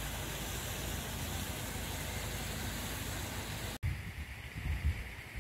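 A steady outdoor hiss of background noise, then after a sudden cut near the end, uneven low gusts of wind buffeting the microphone.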